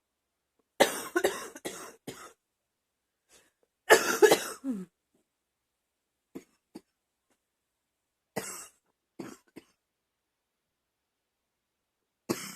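A girl coughing in repeated fits of several quick coughs each, with silent pauses between the fits. The fit about four seconds in is the loudest; near the end another fit begins.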